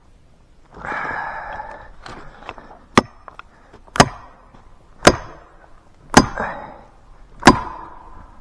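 Five hard blows on a steel felling wedge, about a second apart, each with a short metallic ring, driving the wedge in to lift a spruce back against its lean. A softer rustling comes about a second in, before the blows.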